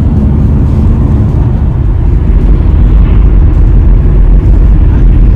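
Steady low rumble of a car driving at road speed, heard from inside the cabin: tyre, road and engine noise.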